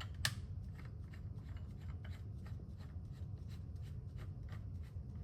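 Faint, irregular small clicks and rustles of hands handling plastic water tubing and fittings as they are connected, over a steady low hum.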